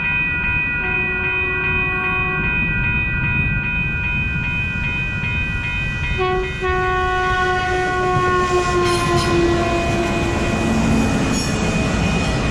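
Passing train with its horn sounding over the rumble of the wheels on the rails. The horn's pitch drops about six seconds in as the train goes by, then keeps sliding lower.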